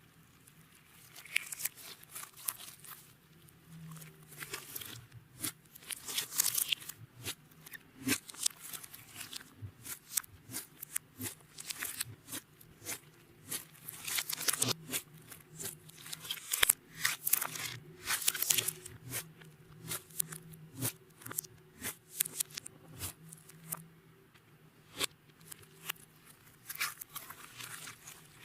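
Hands working clear slime, with irregular sticky crackles, clicks and pops as it is squeezed and stretched.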